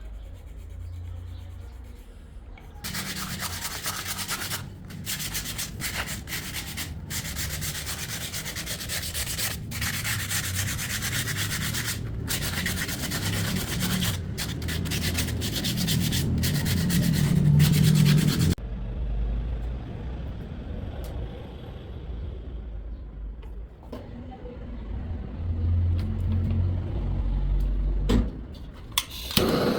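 Wood being sanded: a steady rasping rub with a low hum underneath, going for about fifteen seconds and then dropping to a fainter low rumble.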